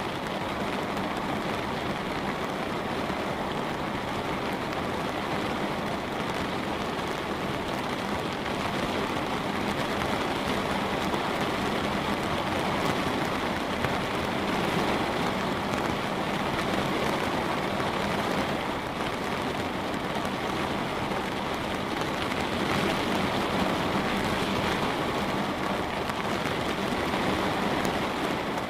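Light rain pattering steadily on a window pane, an even hiss of drops.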